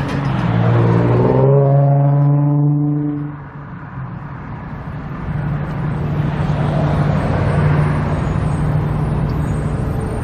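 Road traffic: a motor vehicle's engine accelerates past and fades within the first few seconds. After a short lull, steady engine and road noise from passing traffic.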